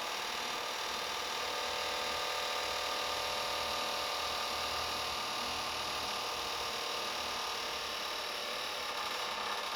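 Overhead door closer whining as it slowly pulls a toilet cubicle door shut: one long, steady whine made of several tones with a fine buzzing edge.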